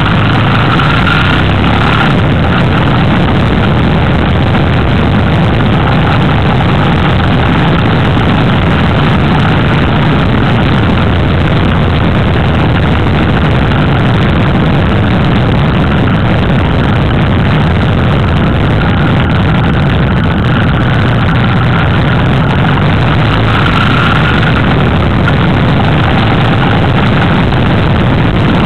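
Motorcycle riding at a steady cruise: engine drone under dense wind and road rush, loud and unchanging.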